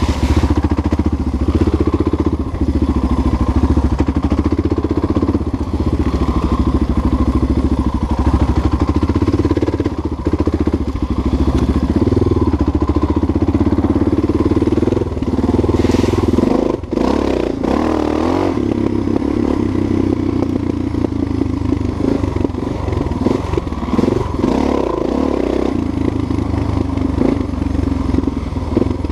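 Single-cylinder four-stroke dual-sport motorcycle engine running under way, the throttle opening and closing, with some thumps and clatter over the bumps, most marked a little past the middle.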